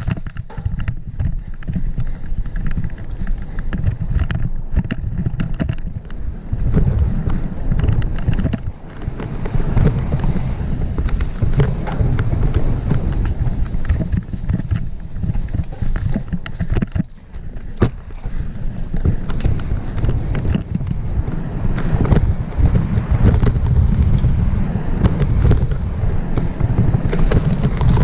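Wind buffeting a helmet-mounted camera's microphone during a fast full-suspension mountain bike descent on a rough dirt trail, a steady low rumble broken by frequent sharp knocks and rattles of the bike over the ground. The level drops briefly about seventeen seconds in.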